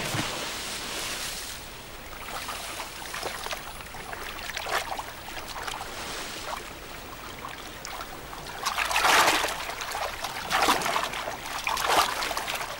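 Sea water splashing: a sudden splash at the start, then ongoing splashing with louder swells in the second half.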